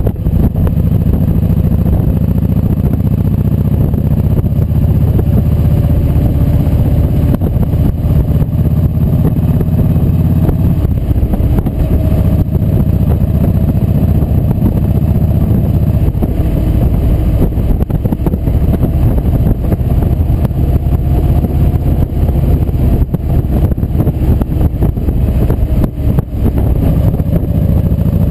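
Motorcycle engine running steadily at cruising speed on the road, with wind rushing over the bike-mounted microphone; the engine note drifts gently up and down with no sharp revving.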